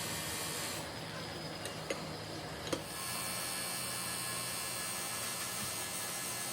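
Steady machine hum with hiss. The higher part of the noise drops away for about two seconds near the start, with two light clicks, then the hum and hiss resume.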